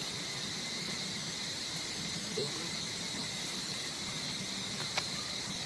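Steady high-pitched drone of insects such as cicadas or crickets, even throughout, with a single sharp click about five seconds in.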